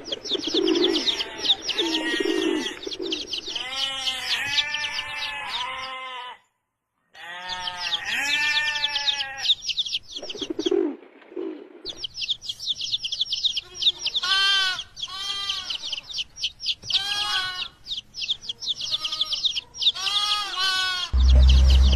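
Farm animals and birds calling: a run of repeated bleat-like calls over fast, high chirping. The sound drops out briefly about six seconds in and changes abruptly near the middle. A loud low sound comes in just before the end.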